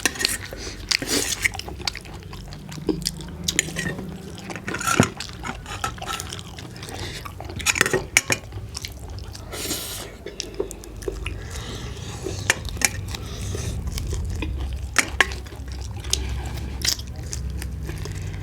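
Close-miked eating of roast chicken and noodles: wet chewing and biting, broken by many short sharp clicks and clinks of a plate and utensils.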